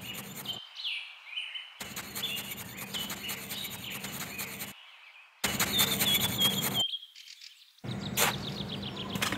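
Small birds chirping and twittering in quick short calls. The sound drops out abruptly to dead silence a few times.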